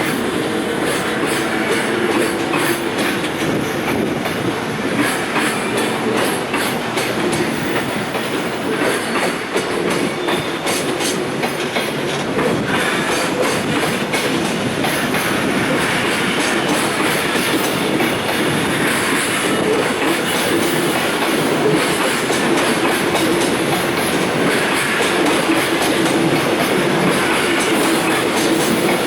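Container wagons of a departing freight train rolling past at low speed, wheels clacking steadily over the rail joints, with a wavering wheel squeal.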